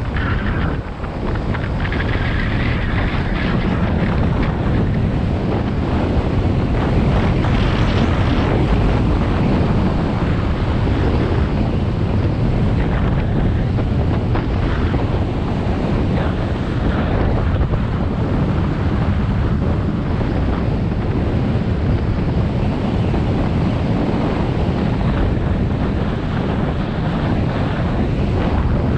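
Wind buffeting a GoPro action camera's microphone as a skier runs down a groomed piste at around 25 mph, with skis hissing over the snow underneath. The noise is loud and steady.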